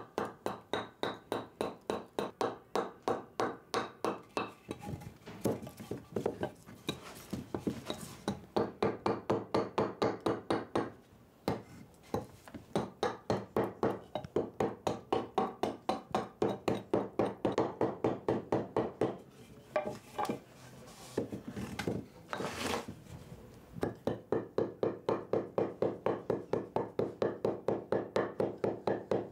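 A steady run of quick, even knocks, about three a second, with a few short pauses.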